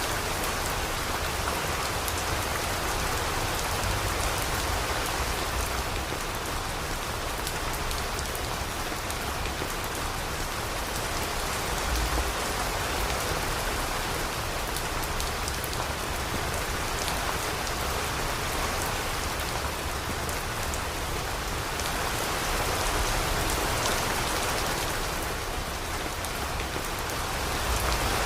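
Steady rain falling and pattering on surfaces, a dense even hiss that swells and eases slightly.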